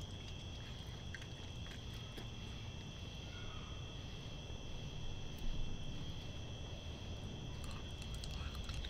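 Steady chorus of night insects, a constant high trill, with scattered faint clicks and crunches from a raccoon eating dry kibble out of a plastic tub.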